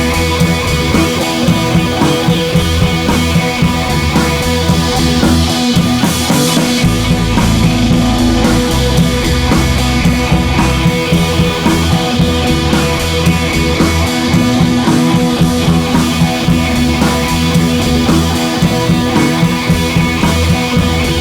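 Background rock music with electric guitar and a driving drum beat.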